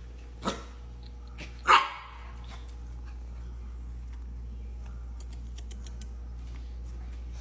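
Corgi puppy giving two short, sharp barks about a second apart near the start, the second louder, over a steady low hum.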